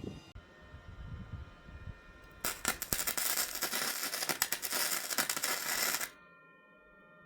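Wire-feed (micro-wire) welding arc crackling with a dense, rapid sizzle for about three and a half seconds, starting about two and a half seconds in and cutting off suddenly when the trigger is released.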